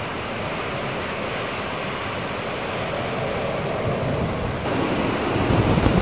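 Strong, gusty wind rushing through tall evergreen trees, with low rumbling from wind buffeting the microphone. The gust builds louder about two-thirds of the way in.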